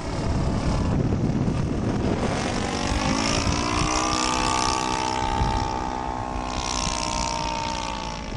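Engine and propeller of a Cessna 152 airplane in flight. Its pitch rises between two and four seconds in, then holds steady and eases down slightly near the end.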